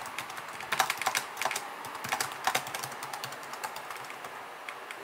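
Typing on a ThinkPad laptop keyboard: a quick run of key clicks that thins out near the end.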